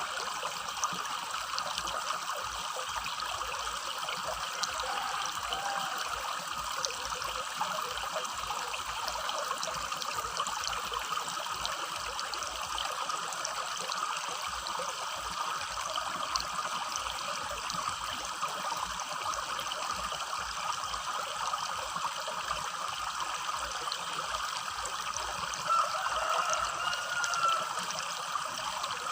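Small rocky river burbling steadily over stones, with a slightly louder patch near the end.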